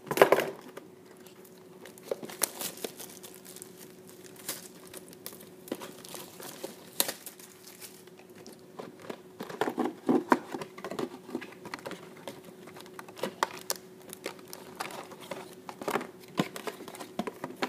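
Clear plastic shrink wrap being torn off a trading-card hobby box and crumpled by hand: irregular crinkling and crackling, loudest right at the start and again about ten seconds in, followed by the cardboard box being handled and opened.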